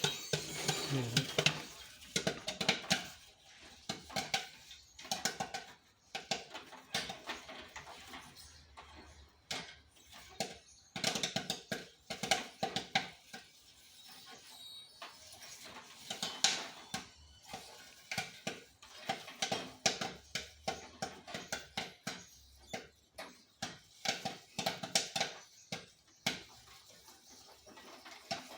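Corn kernels popping in a popcorn machine's heated kettle: a dense, irregular run of sharp pops, the popping still going.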